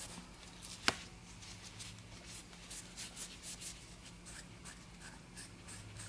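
Alcohol-dampened cloth rubbing over a stained briar pipe bowl, faint repeated scrubbing strokes as the excess alcohol-based stain is wiped off. A single sharp click about a second in.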